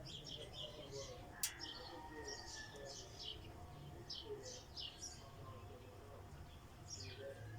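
Small birds chirping in quick, short high notes over a low steady hum, with a single sharp click about one and a half seconds in.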